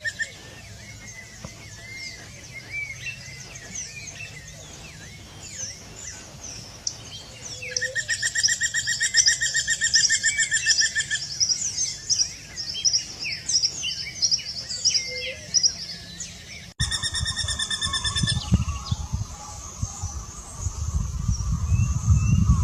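Spot-breasted Woodpecker calling: a long, fast series of evenly repeated notes lasting about three seconds, then, after a cut, a shorter series, with other birds chirping throughout. A low rumble rises in the last few seconds.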